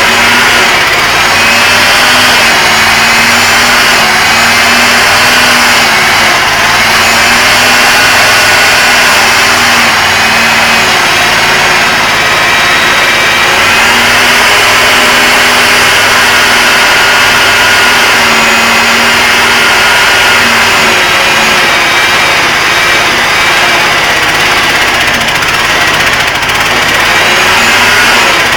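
Homemade mini excavator running, its engine going steadily. A high whine over it drifts up and down in pitch.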